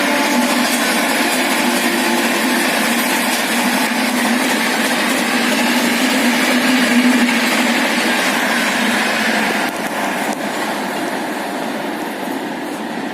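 Express passenger train running at about 130 km/h: a steady rush of wheel and rail noise, with the tail of its horn cutting off at the very start. The noise drops in level about ten seconds in.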